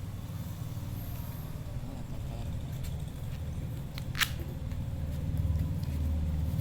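Contents of a phone's retail box being handled, with one sharp click about four seconds in and a few fainter ones, over a steady low hum.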